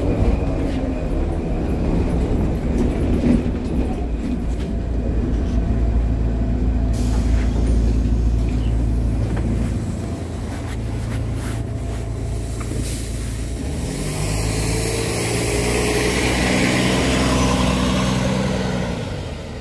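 Jelcz M121MB city bus's diesel engine running steadily at a stop. In the last few seconds a long hiss of compressed air comes from the bus's pneumatics as it moves off.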